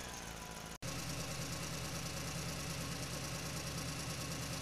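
Vehicle engine idling: a steady, even low hum, broken by a brief drop-out just under a second in.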